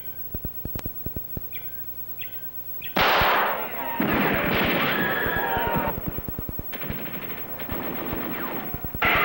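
Machine-gun fire: rapid, irregular shots all through, under a much louder stretch of noise with wavering, gliding tones from about three seconds in.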